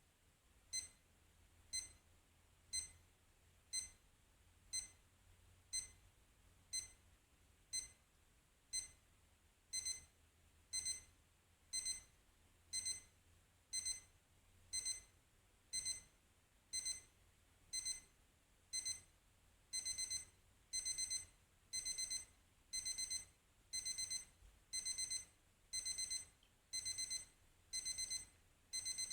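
Ea2 BL501 electronic alarm clock sounding its alarm with high-pitched beeps about once a second. Each burst is a single short beep at first, then lengthens into a short cluster of rapid beeps from about ten seconds in, and into longer clusters from about twenty seconds in: an escalating alarm.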